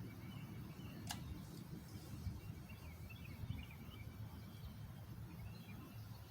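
Quiet outdoor ambience: a steady low rumble with faint high chirps and one faint click about a second in.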